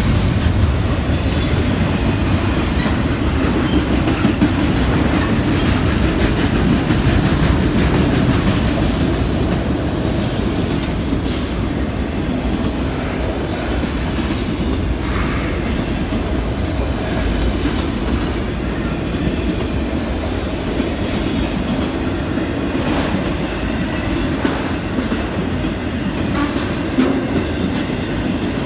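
Freight train of autorack cars rolling past at speed: a steady low rumble of steel wheels on rail, with occasional sharp clacks as wheels pass over rail joints.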